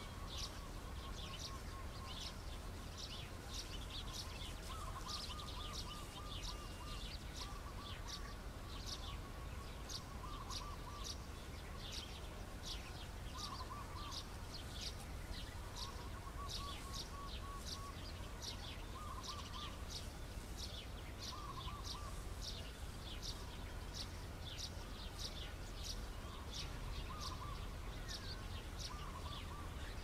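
A flock of small birds chirping busily, with many quick overlapping high chirps and, every few seconds, a short lower trill. A steady low rumble runs underneath.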